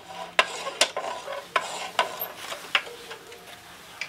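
Plastic blade guard from a radial arm saw retrofit kit being handled and its pull lever worked: a handful of light clicks and knocks of plastic parts, with soft handling noise between them.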